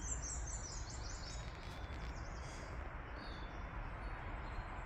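Small birds chirping and twittering in repeated short high notes over a steady low background rumble of outdoor noise.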